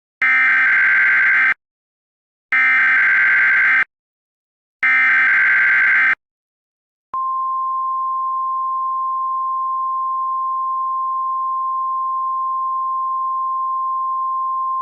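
NOAA Weather Radio SAME header: three short, buzzy data bursts of about a second and a half each, evenly spaced. About seven seconds in, the weather radio's warning alarm starts: one long, steady, high tone, the signal that a new warning message follows.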